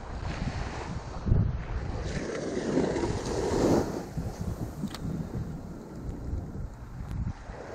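Small surf washing up a sandy beach, with wind buffeting the microphone; a louder wash of water swells and fades about three seconds in.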